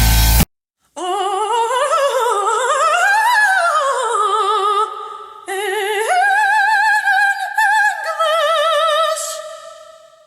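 Music: a high operatic voice singing with strong vibrato, starting after a brief silence about half a second in. It slides up and down in pitch, then holds long notes that fade out near the end.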